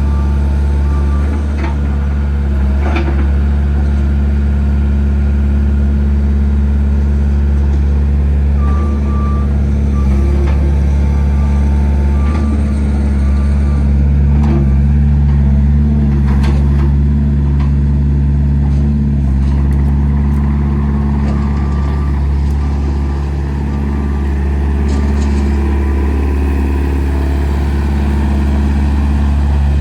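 Wacker Neuson 8003 mini excavator's diesel engine running steadily, its pitch shifting a little as the load changes. For a few seconds near the middle, evenly spaced travel-alarm beeps sound over it.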